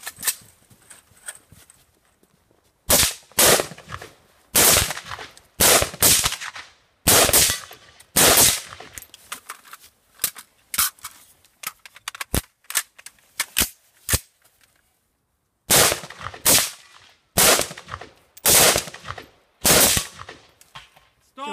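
Gunshots fired singly in two quick series in a shooting duel: the first starts about three seconds in, the second about sixteen seconds in, and each shot has a short echo. Fainter clicks and knocks come between the series.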